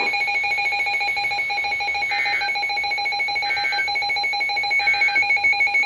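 A weather alert radio sounding a steady, unchanging electronic alarm tone, with three short chirps about a second and a half apart. It is typical of a receiver that has frozen partway through the alert and won't stop.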